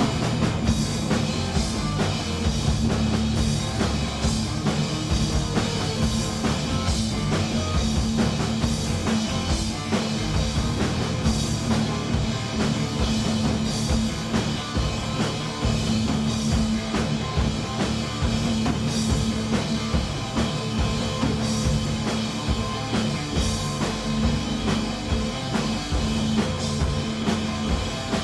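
Live punk rock band playing at full volume, with drum kit and guitar to the fore and the drums keeping a steady beat.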